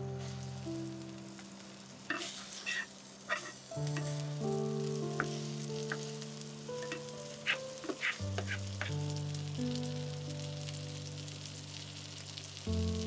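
Salmon fillets sizzling in butter in a frying pan, with sharp crackles and spits in clusters and the light contacts of a slotted plastic spatula as the fish is pressed and turned. Soft background music of long held notes plays underneath.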